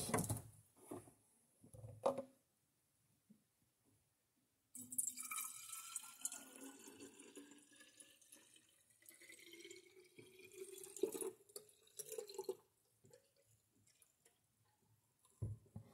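Orange drink being poured from a bottle into a glass bottle: a watery pour whose pitch rises steadily as the bottle fills. A few light knocks come before it.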